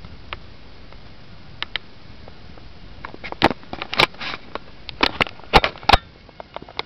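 A run of sharp clicks and knocks over a steady hiss, bunched together from about three seconds in to about six seconds in.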